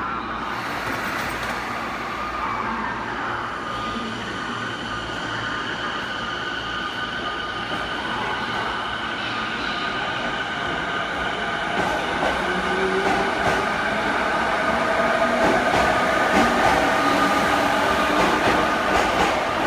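JR East E217 series electric train pulling away from the platform and gathering speed: its traction motors whine in steady tones over a rumble. It grows louder over the second half as the cars pass, with wheel clicks over the rail joints.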